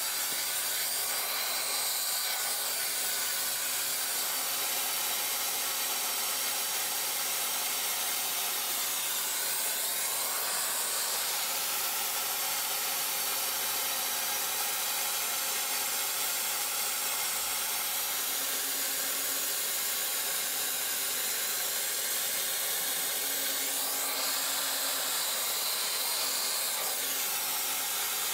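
CNC router with a Proxxon rotary-tool spindle and a 3 mm end mill cutting into MDF board: a steady high-pitched spindle whine over the rasping of the cut. Its pitch shifts a few times as the cutter moves along the outline.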